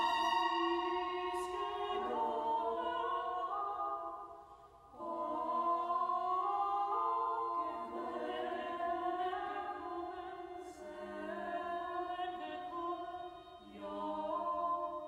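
Choral music: voices singing long held chords that change every two or three seconds, fading briefly about four and a half seconds in before the next chord.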